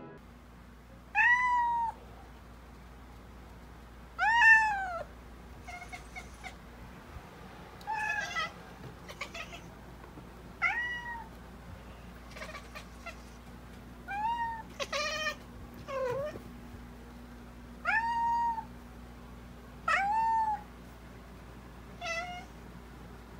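A domestic cat meows again and again: about ten short meows that rise and fall in pitch, with a few quicker chirps between them.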